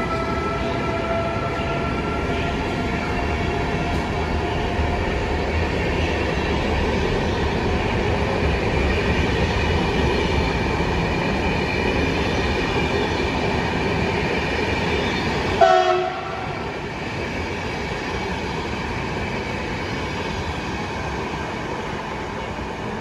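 An electric-hauled passenger train of PKP Intercity coaches rolls past and away on the rails. A thin whine from the Siemens Vectron locomotive fades over the first few seconds. About sixteen seconds in, a brief, sharp high-pitched sound rings out, the loudest moment, and after it the rolling grows quieter.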